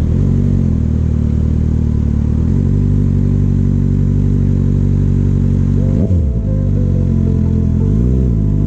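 Kawasaki ZX-6R inline-four motorcycle engine running at steady revs while riding. About six seconds in the revs drop sharply and climb again, and they change briefly again near the end.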